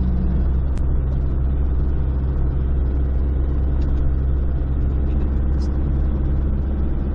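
Steady low drone of a car's engine and road noise, heard from inside the moving vehicle.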